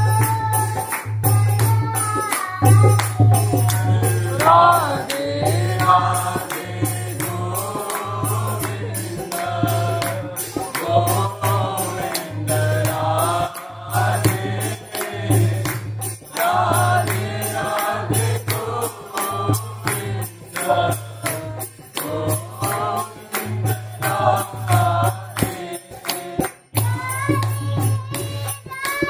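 Devotional chant music: voices singing a melodic chant over a steady low pulsing beat, about one pulse a second, with jingling percussion.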